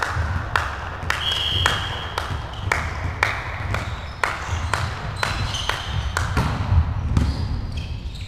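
Volleyballs being hit and bouncing on the sports-hall floor: an irregular run of sharp smacks and thuds, one to two a second, echoing in the large hall.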